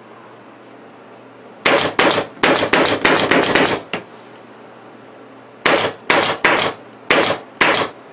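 Pneumatic staple gun firing staples through upholstery fabric into a wooden frame: a rapid run of about a dozen shots starting about one and a half seconds in, then after a pause five more spaced shots near the end.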